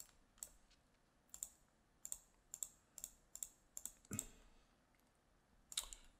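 Faint computer mouse clicks, about a dozen at irregular spacing, some in quick pairs, ticking checkboxes one after another; one heavier click with a low thump comes about four seconds in.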